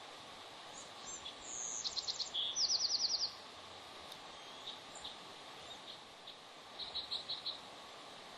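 Bald eagles calling: two loud runs of rapid, high chattering notes in the first few seconds, and a fainter run of about six notes near the end, over a steady background hiss.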